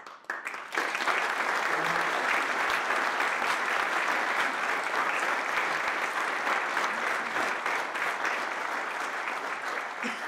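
An audience applauding steadily. It starts about half a second in and thins out near the end.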